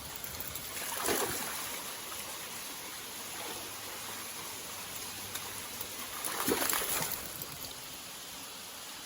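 Rushing water of a creek and waterfall, a steady hiss, with two brief louder splashes, one about a second in and one about six and a half seconds in.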